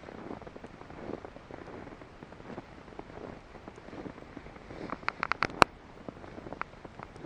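Footsteps crunching through snow in a steady walking rhythm. About five seconds in comes a quick run of five or six sharp cracks, the last one the loudest.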